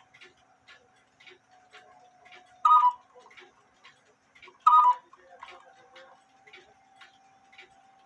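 German quarter-hour cuckoo clock ticking steadily, with two loud short pitched calls from its bellows and pipes about three and five seconds in.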